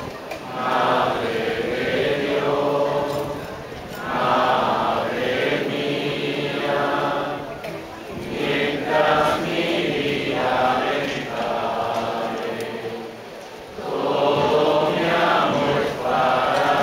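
Unaccompanied voices singing a slow devotional song in long drawn-out phrases of a few seconds each, with short pauses between them.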